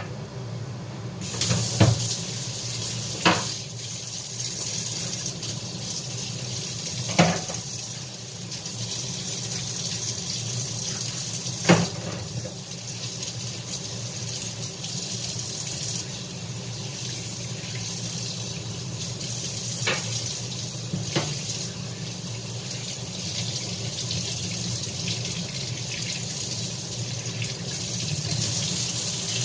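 Water running steadily from a kitchen tap, turned on about a second in, with a few short knocks and clinks over it.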